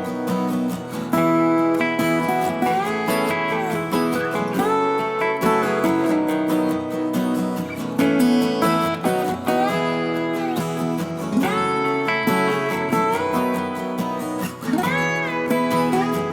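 Background music led by plucked and strummed acoustic guitar, with notes sliding in pitch now and then.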